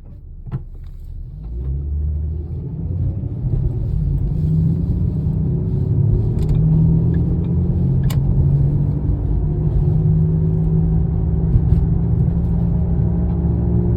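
Car accelerating with a low humming noise like a lawn mower, which the owner takes for a fault. It grows louder over the first few seconds, then holds steady.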